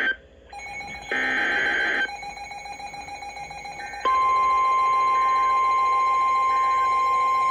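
Emergency Alert System broadcast on NOAA Weather Radio: about a second in, a burst of SAME digital header tones about a second long. At about four seconds the steady single-pitch 1050 Hz weather radio alert tone starts, announcing a new warning.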